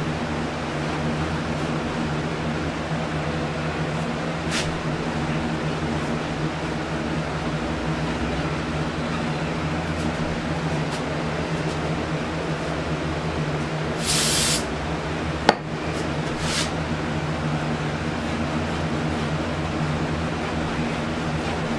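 Electric fan running steadily with a low hum. A brief spray hiss comes about fourteen seconds in, followed a second later by a single sharp click.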